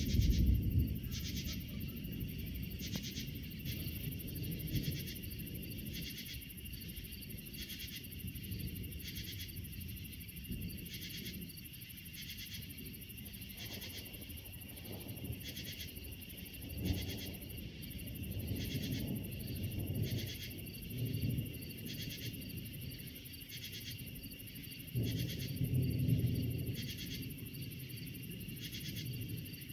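Thunder rolling and rumbling several times, loudest at the start, with fresh rolls about halfway and near the end. Underneath, a steady chorus of night insects keeps up a rhythmic high chirping about once a second.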